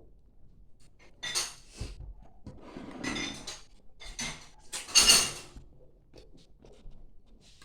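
Dishes and cutlery clattering and clinking in several separate bursts, with a bright ringing to them; the loudest comes about five seconds in.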